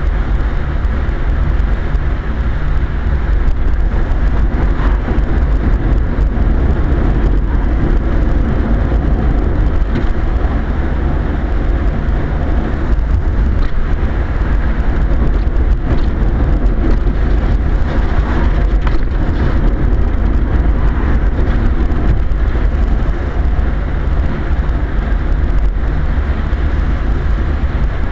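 Steady loud rumble and rush of road and wind noise inside a Quest velomobile's shell, riding fast on a wet road in the rain.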